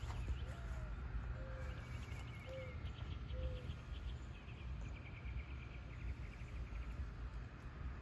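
Outdoor garden ambience: insects chirping in rapid pulsed trills, with four short low notes about a second apart in the first half, over a steady low rumble.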